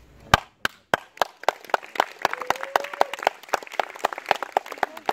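Audience applause: a few separate claps at first, then many hands clapping together, dense and uneven.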